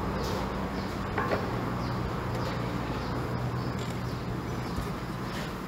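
Steady low machine hum, with a single light click about a second in.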